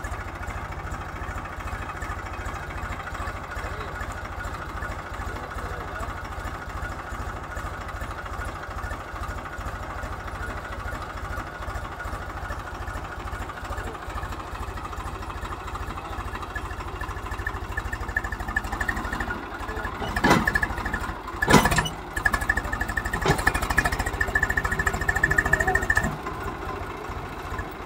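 Swaraj 735 FE tractor's three-cylinder diesel engine running with a steady, regular chug. It gets louder about two-thirds of the way through, with a couple of sharp knocks.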